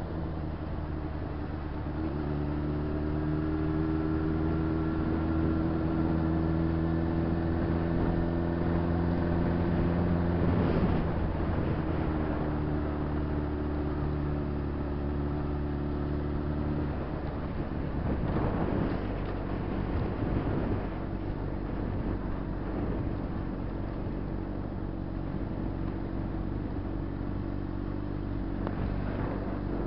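Honda CBR600RR's inline-four engine running at a steady speed on the move, with wind and road noise. About halfway through the engine note drops, followed by a few brief rushes of noise.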